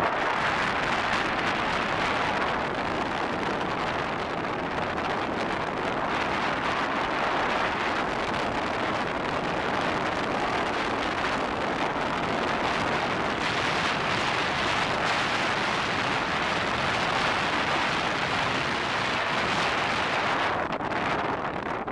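Steady rushing of wind and tyre noise from a car driving along a paved road, with wind buffeting the microphone.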